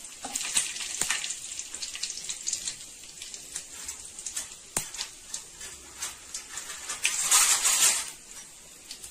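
Whole spices (bay leaves, cinnamon, cloves, fennel seeds) sizzling and crackling in hot groundnut oil in a kadai, with scattered pops and a louder burst of hissing about seven seconds in.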